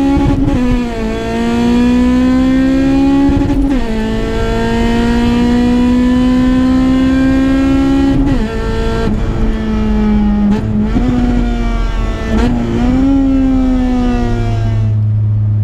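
Car engine heard from inside the cabin under hard acceleration, its pitch climbing steadily and falling sharply at each gear change, several times over. Near the end it drops to a low steady drone.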